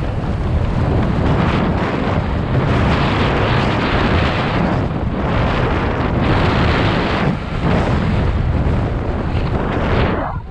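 Wind rushing over a helmet-mounted camera's microphone on a fast mountain bike descent, mixed with the rumble of knobby tyres over loose dirt and gravel.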